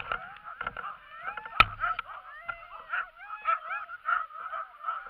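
A team of sled dogs in harness yelping and howling, many high cries overlapping, eager to set off while held stationary. A single sharp knock sounds about a second and a half in.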